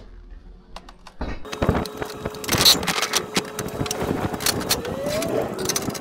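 Scaffold tubes and fittings knocking and clanking over a steady hum, starting suddenly about a second in.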